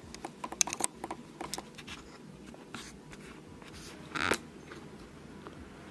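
Small plastic clicks and taps of a toy miniature car being handled in the fingers, with quick clicks in the first two seconds and one short scrape about four seconds in.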